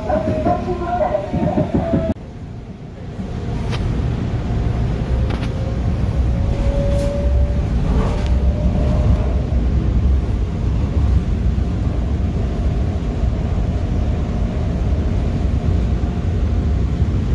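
Subway train running, heard from inside the car: a steady low rumble with a faint whine and a few light clicks. About two seconds in, the level drops suddenly, then the rumble builds back up and holds.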